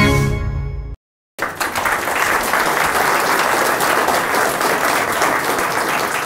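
An audience applauding steadily. The applause starts about a second and a half in, just after the short film's soundtrack cuts off abruptly.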